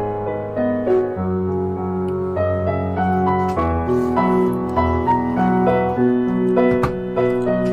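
Instrumental backing music with piano chords and a steady bass line.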